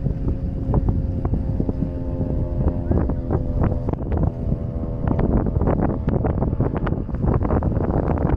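Wind buffeting the microphone on a sailboat under way, a heavy steady rumble with scattered short knocks. Through the first four or five seconds a steady droning tone with several overtones runs underneath, then fades out.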